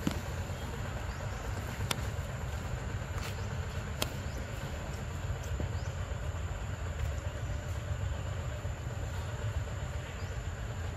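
Steady low rumble with a few sharp clicks, the clearest about 2 and 4 seconds in.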